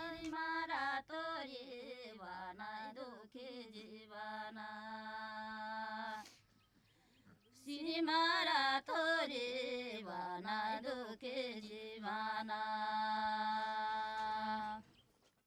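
A single voice singing a slow, ornamented chant-like melody in two phrases, each ending on a long held note, with a short pause between them about six seconds in.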